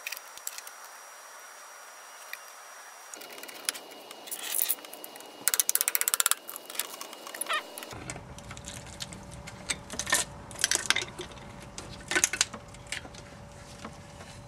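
Metal clicks and clinks of a hand wrench and bolts as the differential cover is unbolted from a 1969 MGB's Salisbury rear axle, with a quick run of clicks about six seconds in.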